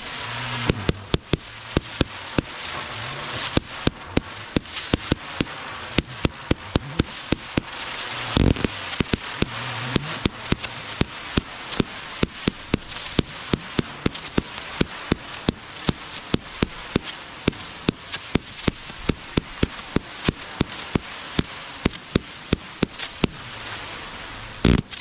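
Consumer fireworks being set off: a long rapid run of sharp bangs, about three a second, over a continuous crackling hiss.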